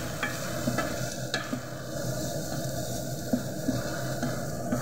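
Julienned carrot strips sizzling in a nonstick pot while a wooden spatula stirs them, with a few light taps and scrapes of the spatula against the pan.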